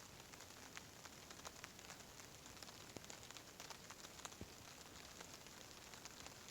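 Faint wood fire crackling in a mud-built Yukon stove: irregular small pops and ticks over a soft steady hiss.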